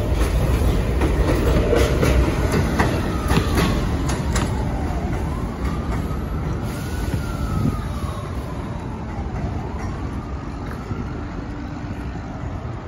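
R46 subway train pulling out of an elevated station: a heavy rumble with wheels clacking over rail joints in the first few seconds, slowly fading as the train moves away. A siren wails faintly in the background, rising and falling twice through the middle.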